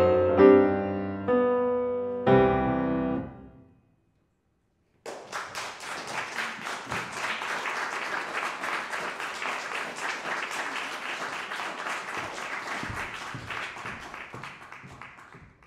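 C. Bechstein grand piano playing the closing chords of a song, the last chord ringing and dying away. After about a second of silence, an audience applauds steadily until the end.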